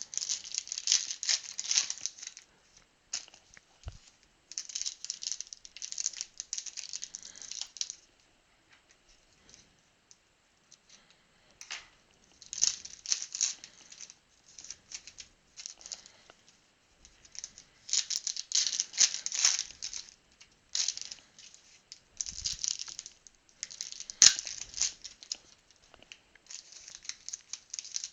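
Foil trading-card pack wrappers (2016 Panini Prizm football) being torn open and crinkled in the hands: irregular spells of sharp crackling and rustling with short pauses between them.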